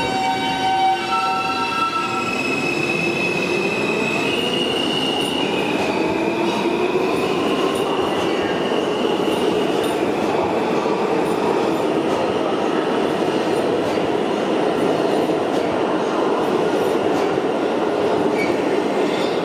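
R160 subway train pulling out of a station and accelerating. Its traction motors whine in a series of tones that step up in pitch over the first several seconds. This gives way to a steady, loud rumble of wheels and cars running past at speed.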